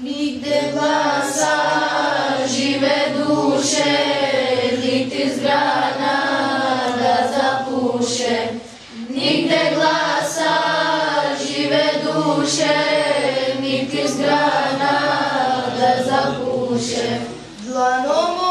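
Children singing an Islamic devotional hymn (ilahija) together in unison without accompaniment, in long held phrases with a short pause for breath about nine seconds in.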